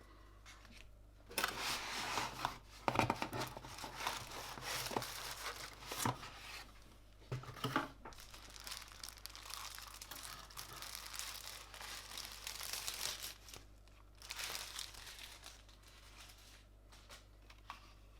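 Packaging wrap being handled and pulled open: irregular bursts of crinkling and rustling with a few sharp clicks, dying away a few seconds before the end.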